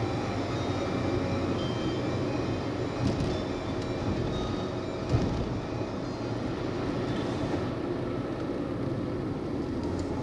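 Car driving along a road: steady road and engine noise heard from inside the cabin, with a single thump about five seconds in.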